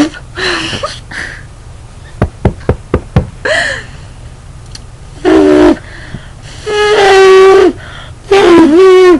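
A girl imitating an elephant trumpeting with her voice: three loud, horn-like calls in the second half, the middle one held steady for about a second. Before them, about two seconds in, comes a quick run of about five sharp clicks.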